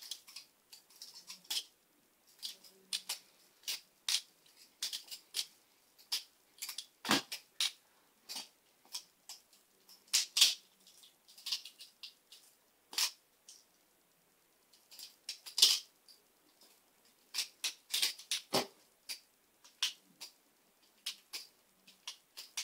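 Two titanium-handled Benchmade 51 balisongs flipped at the same time, their handles and blades clicking and clacking in quick irregular runs. Two heavier knocks come about seven and eighteen seconds in.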